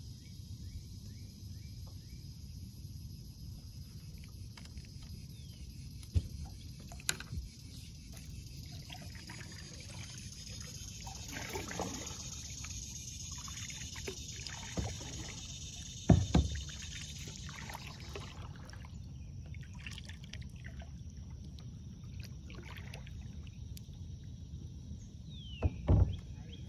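Water trickling and dripping around a kayak as it is paddled, with a few sharp knocks, the loudest about two-thirds of the way through and near the end. A steady high hiss stops about two-thirds of the way through.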